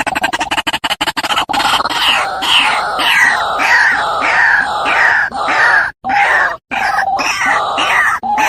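White-breasted waterhen (ruak-ruak) calling loudly: a rapid chattering run for the first second or so, then a string of harsh repeated kru-ak notes, about three a second, each dropping in pitch, broken by two short pauses.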